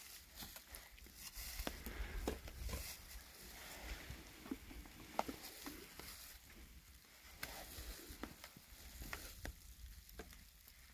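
Irregular soft crackles and clicks from a wood fire burning in a metal grill, with wet handling sounds of gloved hands turning raw chicken pieces in a plastic bowl near the start.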